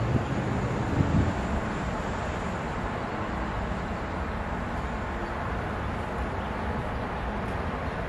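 Steady outdoor wind and background noise on the microphone, with a couple of low thumps in the first second or so.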